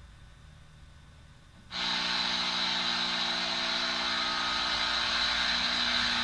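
Clock radio alarm going off suddenly just under two seconds in: a loud, steady, hissing drone with a low hum that keeps sounding.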